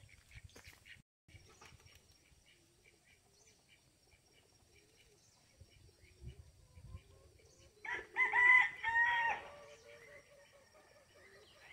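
A rooster crowing once, a single multi-part cock-a-doodle-doo lasting under two seconds about eight seconds in. Faint bird chirps come before it.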